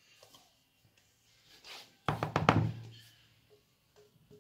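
A stainless-steel mixing bowl knocked several times in quick succession against the rim of a bowl, about two seconds in, to shake out stiffly beaten egg whites.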